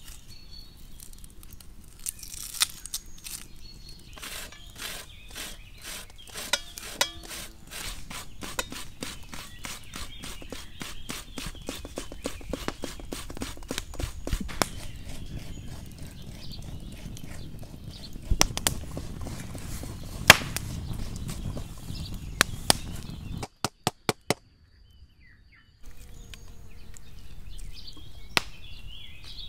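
An onion being grated on a metal box grater into a metal bowl: a long run of quick, repeated rasping strokes, then scattered knocks. Birds chirp faintly in the background.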